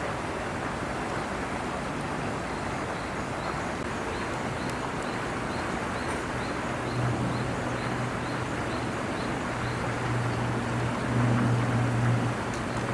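Wind blowing over the microphone as a steady rush. A low, steady hum comes in about halfway through and grows louder near the end.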